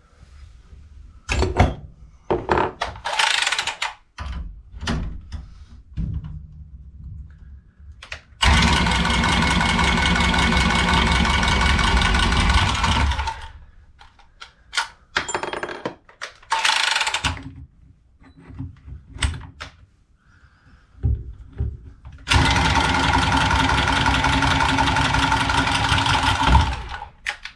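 Battery-powered press tool crimping copper press fittings: its motor runs steadily for about five seconds, twice, with knocks and clatter of tools and pipe fittings between the presses.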